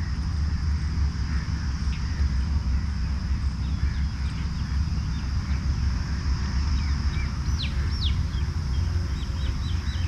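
Birds chirping over a steady, high-pitched insect drone and a steady low rumble. The rumble is the loudest part. There are two sharp downward-sweeping calls about three-quarters of the way through and a quick run of short chirps near the end.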